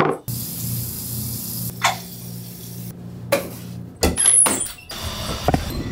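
Handling clicks and knocks, then a metal door lever pressed and the door pushed open with a short high squeak about four seconds in, over a steady low hum.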